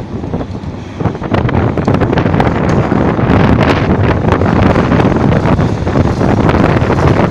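Concrete and masonry breaking and crashing down as a Hitachi ZAXIS 870 demolition excavator tears at a building's wall: a continuous rumble full of sharp knocks and clattering debris, growing louder about a second in. Wind buffets the microphone.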